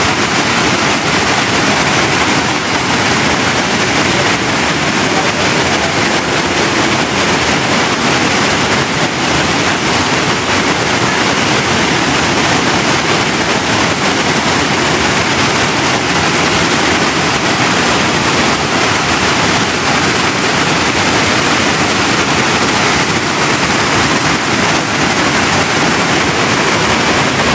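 Waterfall pouring over rock ledges into whitewater: a loud, steady rush of falling water.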